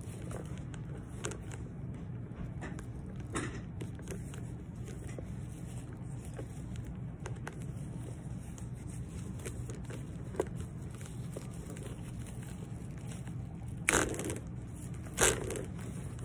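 Protective wrapping being peeled and crumpled off a new handbag's leather strap: soft crinkling and tearing, with two louder crinkles about a second apart near the end.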